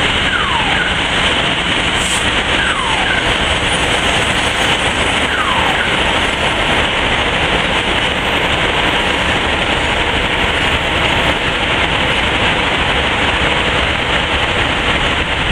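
Fire engines running at a fire scene: a loud, steady rushing drone, with three short falling whistle-like tones in the first six seconds.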